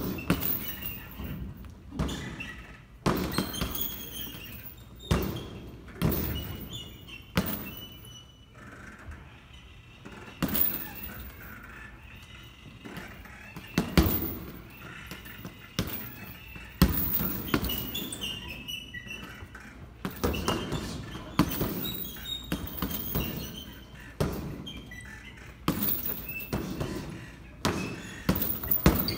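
Boxing-gloved punches thudding into a hanging heavy bag, thrown in quick irregular combinations with short pauses between flurries.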